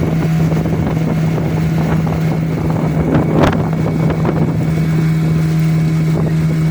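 Motorboat engine running at a steady pitch, with wind buffeting the microphone. A single sharp knock about halfway through.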